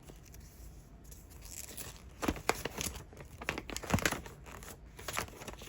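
Packaging crinkling and tearing in irregular crackles and sharp snaps as an attachment is unwrapped, loudest near the end.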